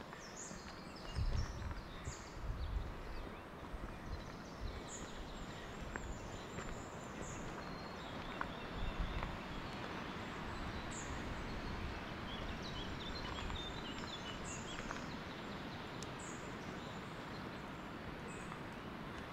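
Small birds chirping in short, high calls every second or two over a steady rushing hiss. A few low thumps come in the first few seconds and again about nine seconds in.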